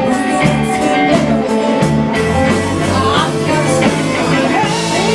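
Live band playing a soul number, with a steady drum beat and electric guitar, the pitch sliding in bent notes about three seconds in and again near the end.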